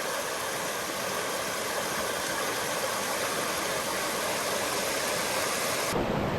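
Steady rushing of a mountain creek's flowing water, an even hiss with a faint steady hum in it; the sound changes abruptly about six seconds in.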